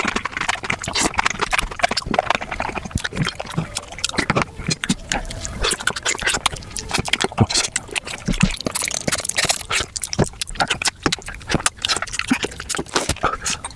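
Close-miked mukbang eating sounds of spicy beef feet sped up five times: a dense, rapid run of wet smacking and chewing clicks.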